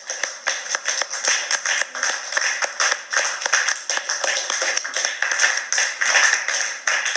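Small audience applauding: a dense, irregular patter of hand claps.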